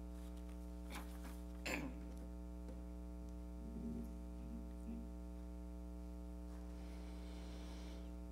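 Low, steady electrical mains hum, with a couple of faint clicks and rustles about one and nearly two seconds in.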